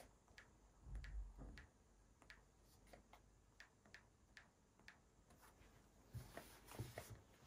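Faint, irregular clicks of a four-digit passcode being tapped in on an iPad Pro's touchscreen keypad, about a dozen in all, with two soft low bumps of the tablet being handled.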